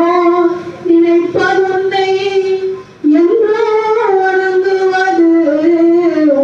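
A high voice singing a slow Tamil devotional song, holding long notes that glide gently between pitches, with brief breaths between phrases.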